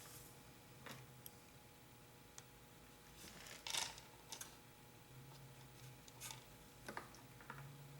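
Faint, irregular clicks and light metallic ticks of small cuckoo-clock chain parts (keeper rings and hooks) being handled and fitted, the loudest a little under four seconds in, over a faint low hum.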